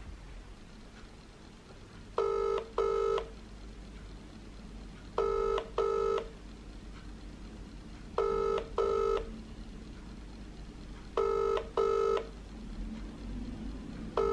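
Outgoing-call ringback tone on a mobile phone's speakerphone, in the British double-ring pattern: two short rings, then a pause of about two seconds, repeating every three seconds. The first double ring comes about two seconds in, followed by three more, and a fifth begins at the very end while the call waits to be answered.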